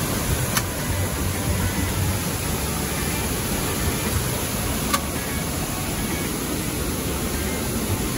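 Steady rushing noise of a motor and passing air while riding in a moving craft, heaviest in the low end, with two faint ticks, one about half a second in and one about five seconds in.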